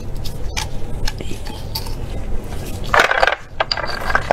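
Cooked sea snail shells clinking and clattering against each other and the plate as they are handled, with scattered light clicks and then a louder burst of clattering about three seconds in.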